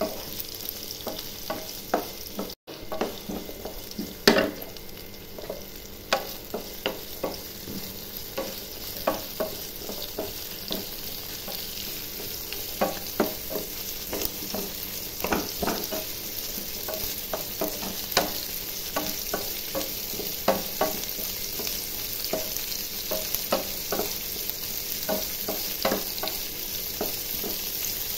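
Sliced onions sizzling in hot oil in a pan, with a wooden spatula scraping and knocking against the pan about once or twice a second as they are stirred.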